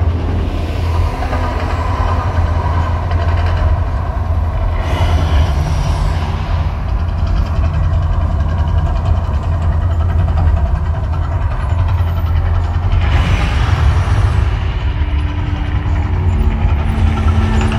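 Deep, steady low rumble from the Mirage volcano's sound system as the show builds toward the eruption.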